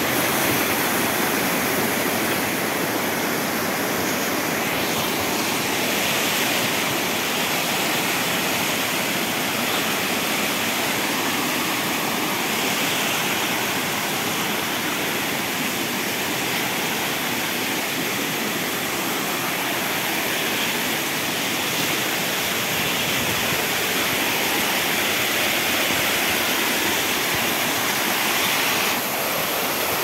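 Waterfall pouring, a steady loud rush of falling water.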